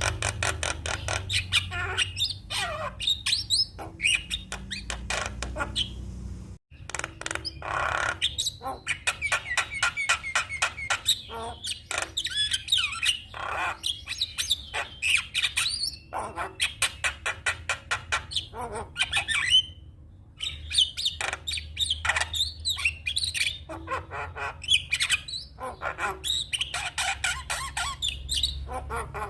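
Javan myna (jalak kebo) singing a long, varied chattering song of rapid clicks mixed with short whistled and squawking notes, breaking off briefly twice. A steady low hum runs underneath.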